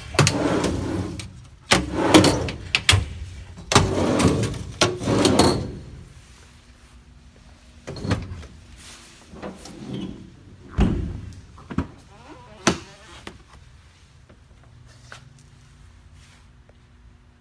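Metal toolbox drawers and compartment doors on a service truck body being pulled open and shut: rattling and clattering for the first several seconds, then a few separate knocks and clunks.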